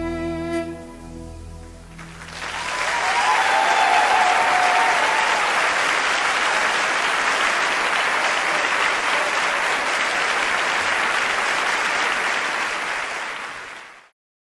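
Concert audience applauding and cheering, swelling in after the band's last held chord dies away in the first two seconds. A whoop glides over the applause a few seconds in, and the applause cuts off abruptly near the end.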